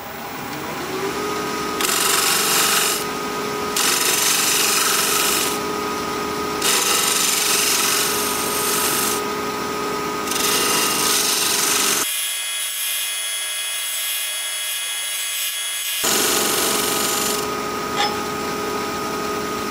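Wood lathe motor spinning up to speed with a steady whine, while a half-inch bowl gouge cuts the unopened pine cone in a series of passes, each pass a rough scraping hiss. The motor tone drops near the end as the lathe slows.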